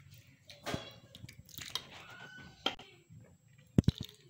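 A metal spoon working in a glass dish of watery curry: soft scattered clicks, then two quick sharp knocks just before the end.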